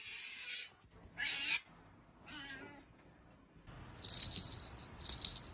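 A cat sneezing three times in short, hissy bursts. From about four seconds in come shakes of bright metallic jingling.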